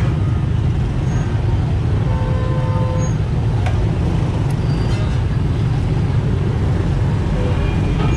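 Motorbike traffic crawling in a jam: a steady low rumble of the rider's own motorbike and the many motorbikes packed around it.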